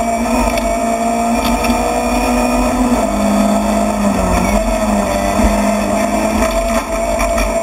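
Rally car's engine running under load at speed, heard from inside the stripped, caged cockpit along with road noise. The engine note drops about three seconds in, dips lower for a moment, then climbs again.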